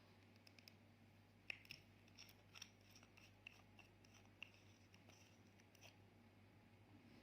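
Faint, irregular small clicks and short scratchy ticks, bunched over the first six seconds, over a steady low hum.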